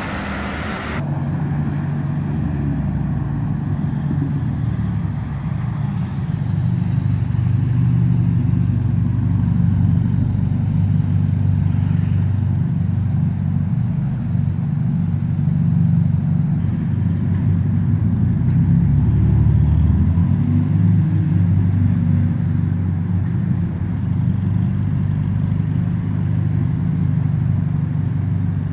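Ferrari Roma's 3.9-litre twin-turbo V8 running, a low engine note that holds fairly steady with small shifts in pitch.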